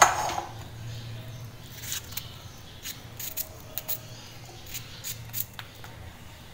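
Kitchen knife cutting pieces off a green apple held in the hand: short, sharp cutting sounds at irregular intervals. A knock right at the start is the loudest sound, and a low steady hum runs underneath.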